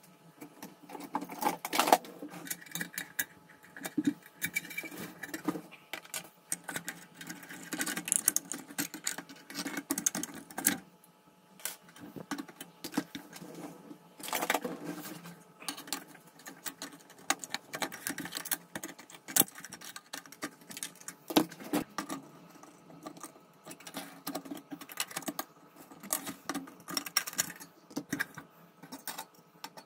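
Rusty sheet-metal kerosene hurricane lantern being handled and taken apart by hand: irregular clinks, rattles and scrapes of loose metal parts.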